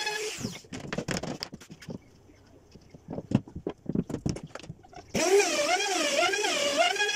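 Handheld trim router switching off and running down, then a series of irregular hammer taps on a loose wooden guide strip lying on the door panel as it is nudged into place. About five seconds in the router starts again and runs, its pitch rising and falling regularly as it is worked along the groove.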